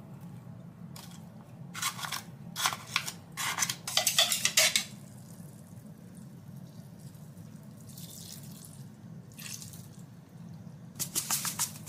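Food and utensils being handled in a ceramic bowl: clusters of quick clicking and rustling strokes a couple of seconds in and again near the end, with a softer hiss in between, over a low steady hum.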